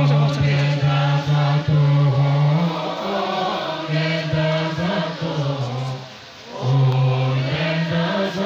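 Tibetan Buddhist monks chanting together in low voices, a held, slowly shifting drone of prayer. The chant breaks briefly about six seconds in and then picks up again.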